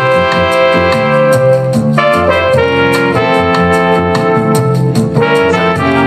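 Music with a steady beat played through a JBL Tuner 2 portable Bluetooth DAB speaker at 75% volume.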